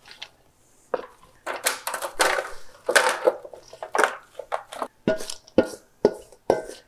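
Sliced apples being scraped out of a stainless steel mixing bowl with a wooden spoon and tumbling into a baking dish: irregular scraping and sliding rushes, with several short knocks of the spoon against the bowl in the second half.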